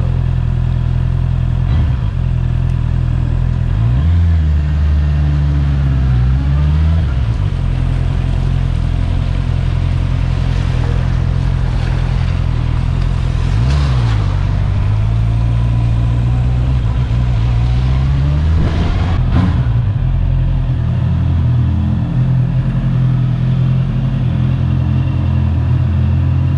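Honda CB650R's inline-four engine running under way, its note dipping and rising several times as the throttle opens and closes.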